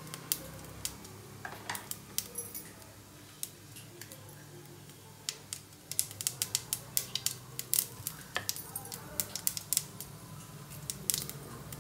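Mustard seeds popping and spluttering in hot oil with cumin seeds and urad dal in a stainless steel kadai, a tempering frying. A few sharp pops at first, then coming thick and fast from about six seconds in, over a low steady hum.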